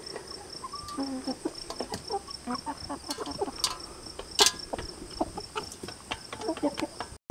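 A flock of chickens pecking at metal feed bowls, with sharp scattered taps and a few short, low clucks. Behind them an insect, likely a cricket, chirps steadily at a high pitch, about three to four pulses a second.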